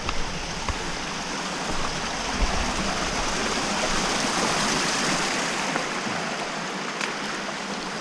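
Creek water rushing and splashing over rocks in a steady hiss that swells slightly midway.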